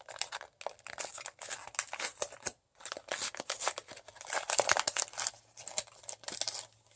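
Crinkly blind-box packaging being handled and torn open by hand, irregular crackling and rustling with a brief pause partway through.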